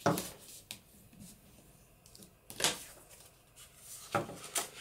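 Sheets of sturdy paper being handled and laid down: a few brief rustling swishes, one at the start, one about two and a half seconds in and two close together near the end, with faint ticks between.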